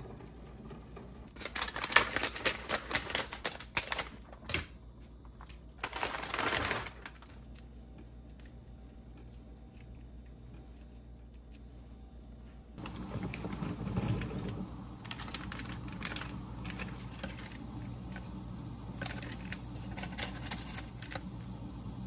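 Kitchen food-prep sounds: two bursts of rapid clicking and rustling early on, then from about halfway a steady low hum that runs on with scattered light clicks and taps.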